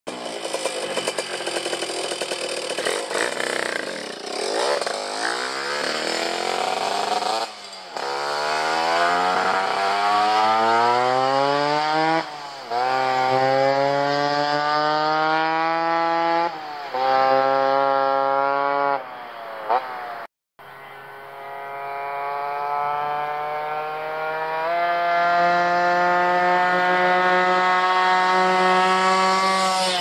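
Tuned Suzuki K50's 50 cc two-stroke single-cylinder engine accelerating through the gears, its buzzing pitch climbing and dropping back at each shift, three times in the middle. After a brief cut in the sound it climbs once more and holds a steady high pitch near the end.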